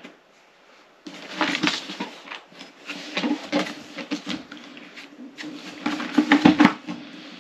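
Hands handling a cardboard kit box, turning it over and sliding it on the table: irregular rustling and scraping of cardboard, starting about a second in and loudest near the end.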